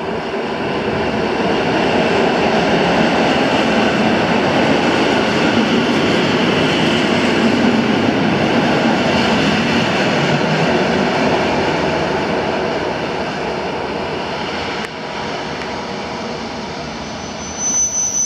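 Single Koleje Mazowieckie EN57AKM electric multiple unit running into the platform and passing close by, its running noise swelling in the first two seconds, staying loud, then fading as it slows towards its stop. A high steady squeal begins near the end.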